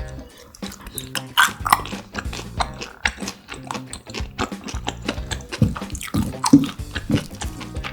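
Close-miked chewing and biting of grilled pork intestine: repeated wet, squishy mouth clicks and smacks, over low background music.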